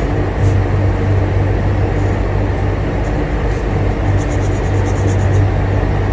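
Steady low hum and hiss of a room air conditioner, with faint pencil scratches on paper and a quick run of fine strokes about four seconds in.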